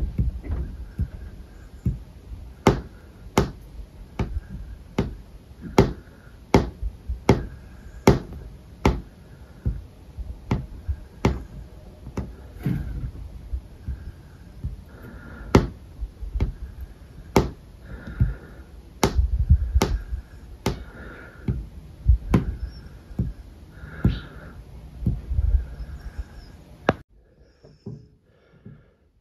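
Fingertips clicking on a wooden tabletop in a finger-independence exercise: single sharp taps at about one to two a second in an uneven rhythm. The taps stop about two seconds before the end, leaving near silence.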